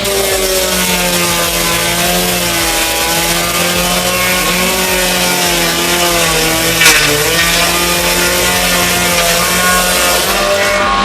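A large machine's engine running under changing load, its pitch wavering up and down, with one sharp crack about seven seconds in.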